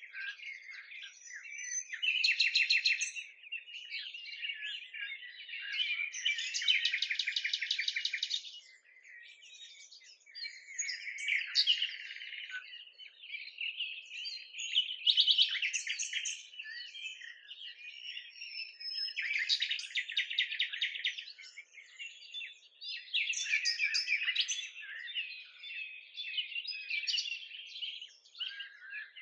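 Several songbirds singing together in a dense chorus of chirps and whistles, with louder runs of fast trilled notes now and then.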